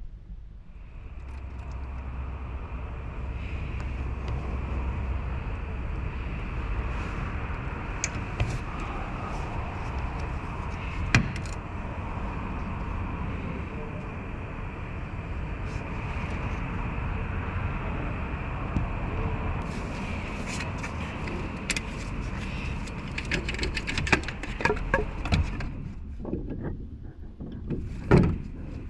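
Toyota Wish engine running with a steady high-pitched whine, the abnormal engine-bay noise that turned up during an alternator replacement. It stops about three seconds before the end, followed by a few clicks and a knock.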